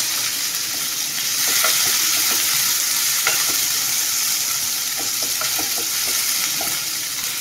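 Chopped onions sizzling steadily in hot oil in a nonstick pan as they start to fry, stirred with a wooden spatula that gives scattered light taps and scrapes against the pan.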